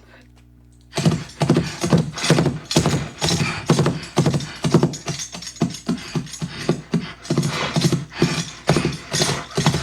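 Playback of a Foley horse track: hoofbeats made with horse-hoof props in a steady clip-clop rhythm, layered with bridle jingle and mouth-made horse snorts. It starts about a second in after a short pause.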